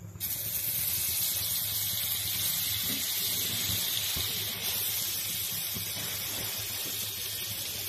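Butter sizzling on a hot tawa (flat griddle), a steady hiss, as pav buns are toasted in it.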